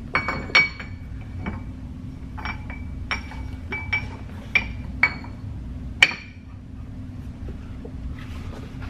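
Sharp metallic clinks with a short ring, about ten in all and irregularly spaced, the loudest near the start and about six seconds in, as a steel wheel spacer and lug hardware are handled and seated on a car's rear wheel hub.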